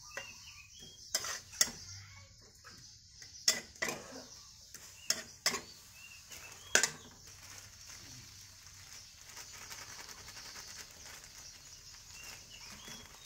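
Metal ladle scraping and knocking against a wok as red curry paste is stir-fried in a little water, over a steady sizzle. There are several sharp knocks, mostly in pairs, in the first seven seconds, then only the sizzling.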